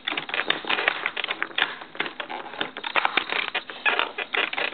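Rapid, irregular plastic clicks and rattles of keycaps being pried off a computer keyboard and handled.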